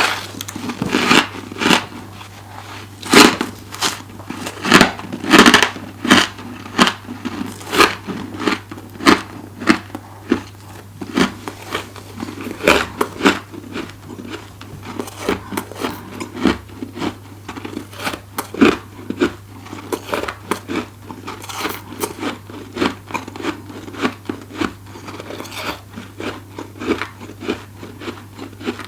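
Close-up crunching bites and chewing of powdery freezer frost: a steady string of irregular sharp crackles, loudest in the first few seconds, over a faint low hum.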